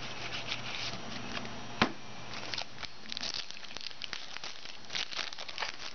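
Foil wrapper of a 2009 Upper Deck Heroes football card pack being torn open and crinkled by hand, a run of short crackles and rips. One sharp tap stands out a little under two seconds in.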